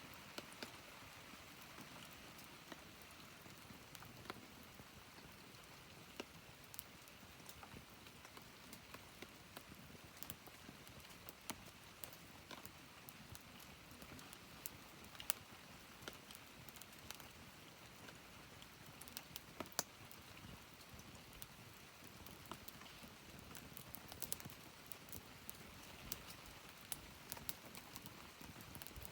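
Wood campfire burning with a faint steady hiss and irregular sharp crackles and pops, several clusters of them a second.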